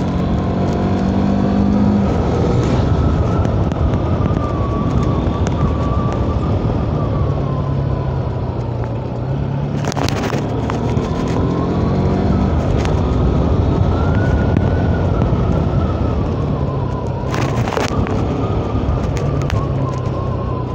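Bajaj Pulsar NS 200's single-cylinder engine running under way, its pitch shifting up and down with throttle changes, over wind and road noise. Two brief knocks about ten and seventeen seconds in.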